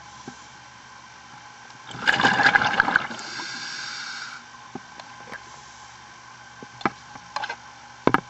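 Underwater sound of a scuba diver breathing through a regulator: a loud burst of exhaled bubbles about two seconds in, then a steady hiss of air for about a second. Scattered sharp clicks follow, over a steady low hum.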